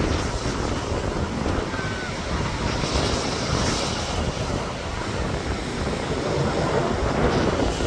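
Distant jet noise from the Red Arrows' BAE Hawk jets flying past in formation: a steady, even rumble, mixed with wind on the microphone.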